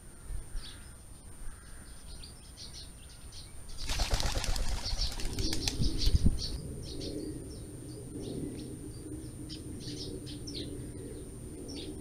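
Common woodpigeon taking off, its wings clattering loudly for about two seconds starting about four seconds in. Small birds chirp briefly throughout.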